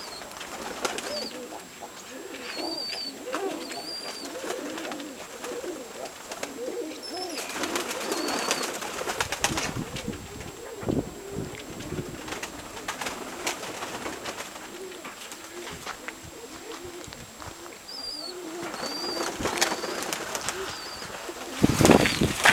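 Nikolaev pigeons cooing in repeated low, rising-and-falling calls, with short high chirps from a small bird in a few clusters.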